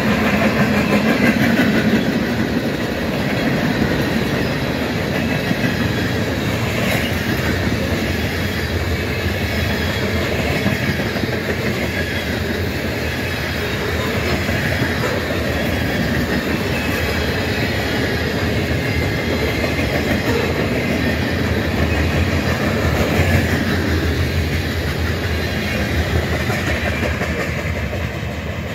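Freight train of covered hopper cars and boxcars rolling past at speed: a steady rumble of steel wheels on the rails, easing slightly near the end as the last cars move away.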